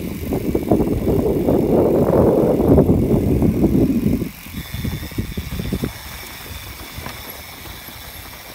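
Mountain bike tyres rolling and crunching over a loose dirt trail, loud for the first four seconds and then quieter.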